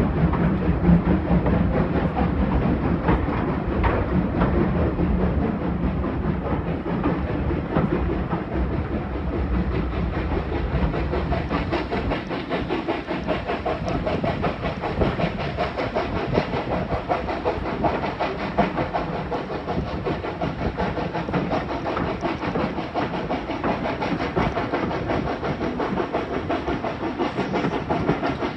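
Steam locomotive Victor hauling its coaches under way, heard from a carriage window: a steady rhythmic clatter of wheels over rail joints mixed with the engine's exhaust and hiss. For about the first twelve seconds the sound is deeper and heavier, as the train runs through a tunnel, then it opens out and lightens.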